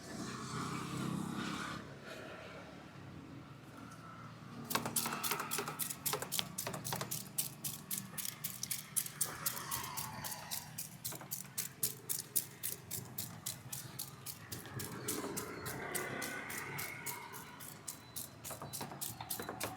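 Barber's hands tapping and slapping rapidly on the head during a head massage. It starts about five seconds in as a quick, steady run of sharp pats, several a second.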